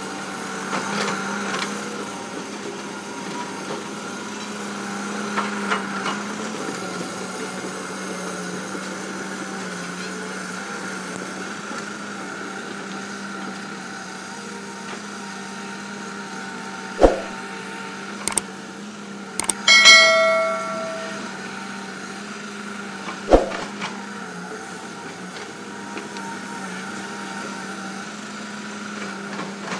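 Diesel engine of heavy earthmoving equipment running steadily, with a few sharp metallic knocks and one short ringing clang about two-thirds of the way through.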